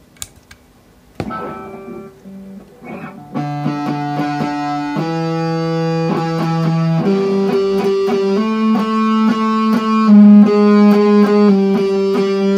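Electric guitar played through a breadboarded diode-clipping distortion circuit: a few picked notes about a second in, then sustained notes and chords ringing on from about three and a half seconds, growing louder. A couple of light clicks at the very start.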